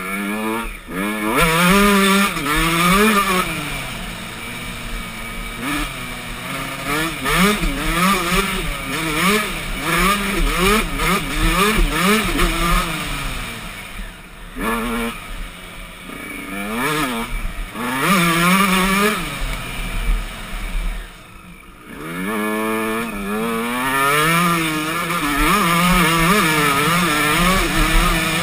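Dirt bike engine revving up and down continuously as the rider accelerates, shifts and rolls off the throttle on a sandy forest trail. The engine note drops away briefly twice, about halfway through and again a little later, then climbs again.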